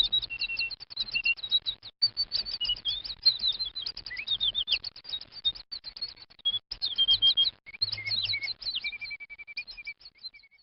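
Small birds chirping and twittering, many quick high chirps overlapping one another, stopping shortly before the end.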